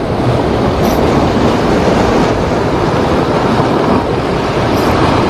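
Heavy high-tide surf: a loud, steady rush of waves surging against the shore.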